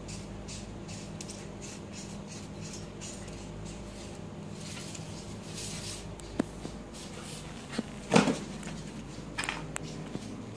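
Steady low hum with a few hard knocks and clatters on a tiled floor, the loudest about eight seconds in and a short cluster of smaller knocks near the end.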